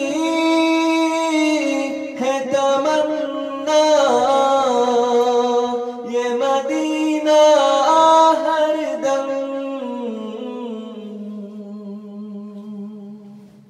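A man singing a nasheed unaccompanied, drawing out long wordless notes that glide between pitches. The voice fades over the last few seconds.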